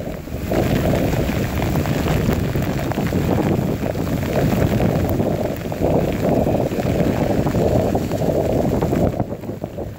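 Strong thunderstorm wind gusting and buffeting the microphone, over heavy rain on the street. The gusts ease briefly near the end.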